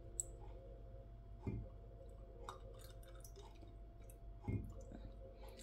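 Aperol poured from its bottle into a wine glass of ice and cava: faint liquid pouring with small crackles and clicks from the ice, and two soft glugs from the bottle.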